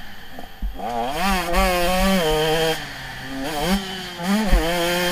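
Motocross dirt bike engine heard from on board, revving up and down as the throttle is opened and eased through the track. The revs drop briefly about three seconds in, and a sharp thump comes about four and a half seconds in.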